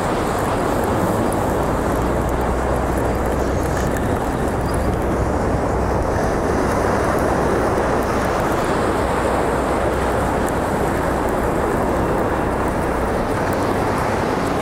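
Steady rushing noise of wind and surf, with a low wind rumble on the microphone that drops away near the end.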